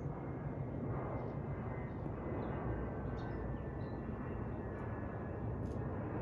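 Twin-engine jet airliner passing high overhead: a steady low rumble of its engines, with a few faint bird chirps.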